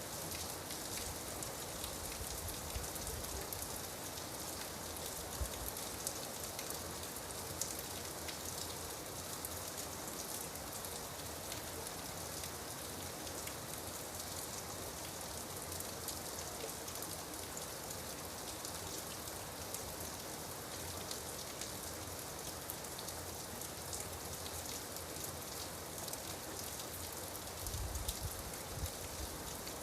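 Steady rain falling on a surface, a dense even hiss with many small drop ticks. A few low rumbles come through, the strongest a little before the end.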